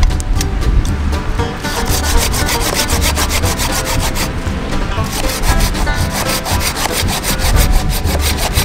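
Small hand saw cutting through a dry driftwood log in quick, regular back-and-forth strokes, each stroke a rasping scrape of the teeth through soft, dry wood. The strokes grow denser and more even after about two seconds.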